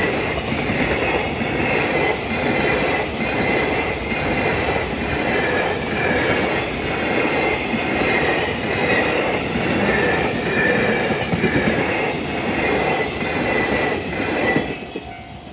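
A long freight train's wagons roll past close by: a steady rumble with regular wheel clacks over the rail joints, about one and a half a second, and a high squeal from the wheels. Near the end the train has passed, the rumble drops off, and a level crossing's warning bell ringing steadily is left.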